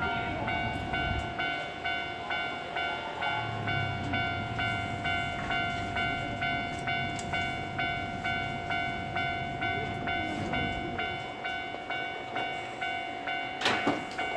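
Japanese railway level-crossing warning bell ringing, an electronic clang repeating evenly at about two strikes a second, the signal that a train is approaching. A single sharp knock sounds near the end.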